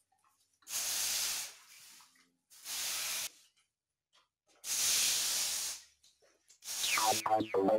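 A floor broom swishing water across a wet garage floor in four separate strokes, each about a second long. Electronic music comes in near the end.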